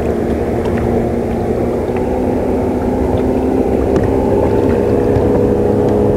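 Boat motor running steadily, a continuous hum with a few steady tones.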